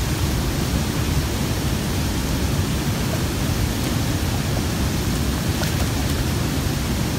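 Water pouring over a dam spillway into whitewater rapids, a steady rushing noise.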